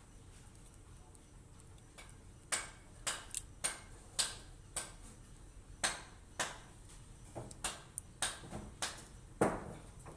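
About fifteen sharp, irregular clicks from bare hands cleaning a small fish, as the fingers pick out its innards and flick them away. The loudest comes near the end.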